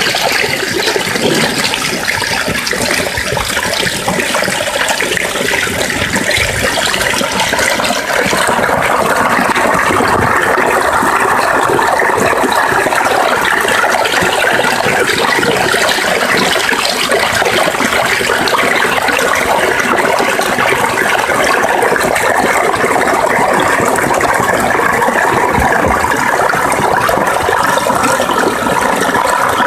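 Small taiga forest stream babbling steadily, growing a little louder about eight seconds in.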